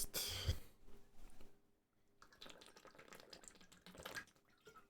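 Paper trading cards and their packaging being handled: a short rustle with light clicks, a brief pause, then faint irregular rustling and ticking.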